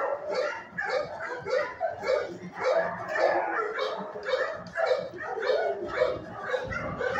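Dogs barking in a shelter kennel block: short barks follow one another several times a second and overlap, with no break.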